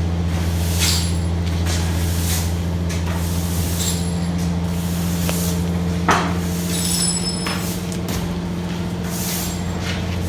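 Broom sweeping a floor in irregular hissing strokes, with one sharp knock about six seconds in, over the steady low hum of an idling engine.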